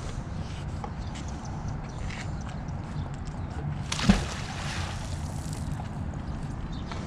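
A fishing magnet on a rope lands in the river with a single splash about four seconds in, over a steady low background rumble.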